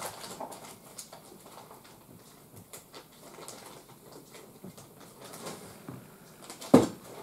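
Faint rustling and small clicks of hand crocheting: a metal-shafted crochet hook pulling thick plush chenille yarn through stitches. A single sharp knock, the loudest sound, comes near the end.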